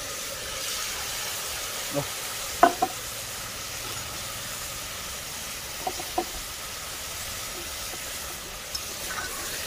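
Tomatoes frying in oil in an aluminium pressure cooker on a gas stove, giving a steady sizzle. A steel spoon knocks against the pot a few times as potatoes and peas are stirred in.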